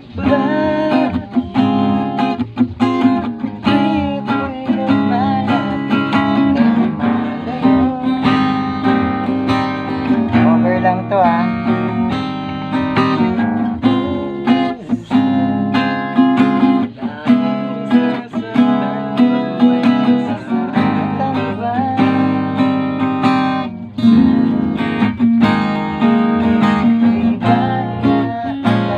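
Acoustic guitar strummed in a steady run of chords, the chords changing every few strokes.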